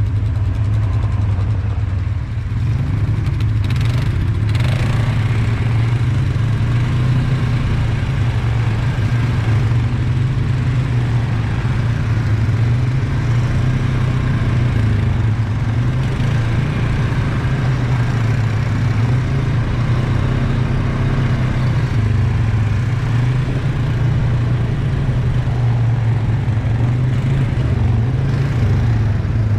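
All-terrain vehicle engine running steadily while riding along a dirt trail, a low drone that swells and eases slightly with the throttle.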